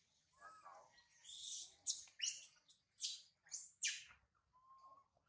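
Baby macaque crying: a run of shrill, falling screeches from about a second in, lasting some three seconds, with fainter short cries near the end.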